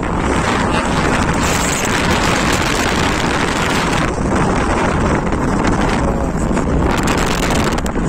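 Wind buffeting a phone's microphone from a moving car, over steady road and engine rumble.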